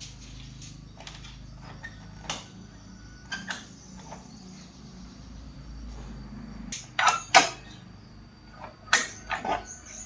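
Irregular clicks and knocks, the loudest a pair about seven seconds in and another cluster about nine seconds in, over a low steady hum.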